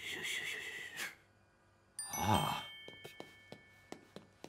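Cartoon sound effects: a short wavering tone in the first second, then a bright chime about two seconds in whose tones ring on, with light footstep taps about three a second under it.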